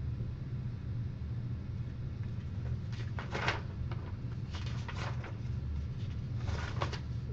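A steady low room hum with three short rustling scrapes, about a second or two apart, from a sheet of paper being handled on a desk.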